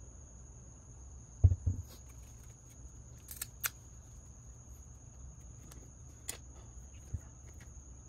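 Handling noises of a heavy harmonic damper on a wooden workbench: a short low thump about a second and a half in as it is set down, a second softer one just after, then a few light clicks and taps. A faint steady hum and a thin high steady tone run underneath.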